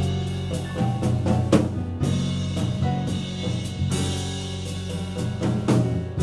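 Modern jazz septet playing live, with frequent sharp percussive hits over the band's sustained tones.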